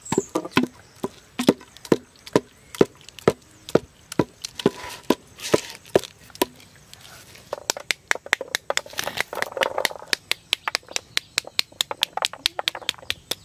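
Sharp knocks and taps as a pomegranate is cut with a knife and worked apart on a wooden board over a steel plate. In the second half they quicken into a fast, even run of about five taps a second as the seeds are knocked loose onto the steel plate.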